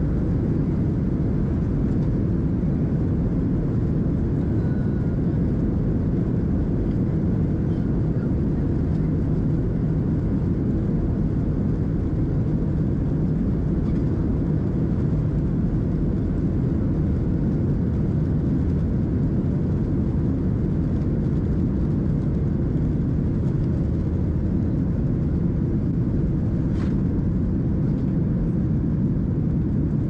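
Boeing 737-800 takeoff roll heard from inside the cabin over the wing: a steady, heavy low roar of the CFM56 turbofans at takeoff thrust together with the rumble of the wheels on the runway. A single brief click comes near the end as the aircraft rotates.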